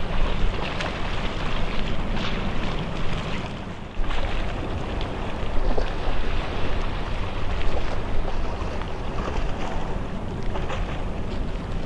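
Gusty wind buffeting the microphone over the distant rushing noise of a jetfoil running at speed on its foils offshore.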